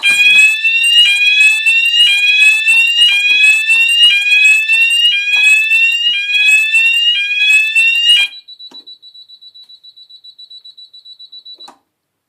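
Fire alarm system sounders sounding a loud rising sweep tone, repeated about once a second for about eight seconds and then cutting off suddenly: the alarm panel running its test after being reset. After it the control panel's faint rapid beeping carries on, stopping shortly before the end.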